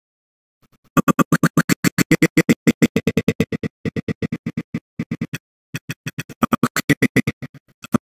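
Audio scrubbing in the HitFilm Express video editor: a voice clip played back in rapid choppy fragments, about eight or nine chops a second, as the playhead is dragged along the timeline. It starts about a second in, stops briefly a little past the middle, then starts again.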